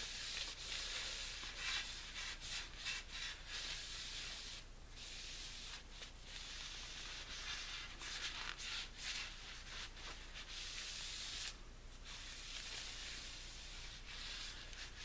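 Cloth rag rubbing along a zebrawood walking stick, wiping on an oil finish in irregular swishing strokes with short pauses.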